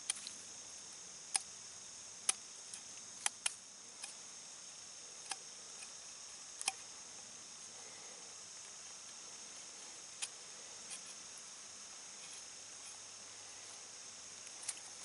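A knife blade carving the end of a green, peeled sapling shaft into a blunt end: scattered sharp clicks, irregular, as the blade bites and shaves the wood. A steady high drone of insects runs underneath.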